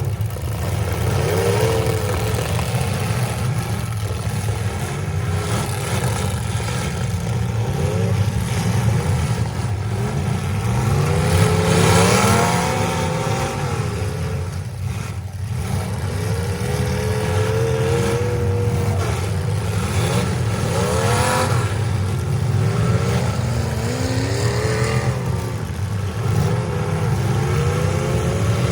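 Several demolition derby cars' engines revving at once, their pitches rising and falling as they accelerate and back off, with a few knocks of cars hitting each other.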